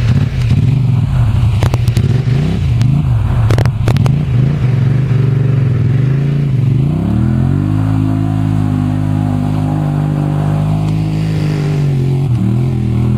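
Polaris 850 ATV engine revving up and down as the quad ploughs through swamp mud and water, with a few sharp clicks in the first four seconds. About seven seconds in the revs climb and hold high and steady, then drop near the end.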